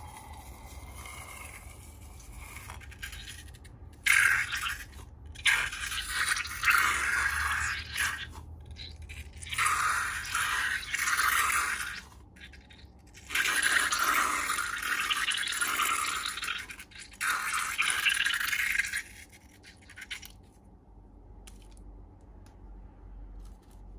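Slime being worked and mixed: a series of hissy, sticky scraping noises a second or two each, with short breaks between, starting about four seconds in and stopping a few seconds before the end.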